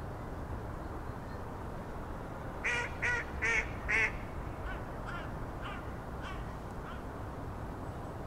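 Waterfowl calling at a lake: four louder calls about half a second apart, then about six fainter ones at the same pace fading away, over a steady low ambient rumble.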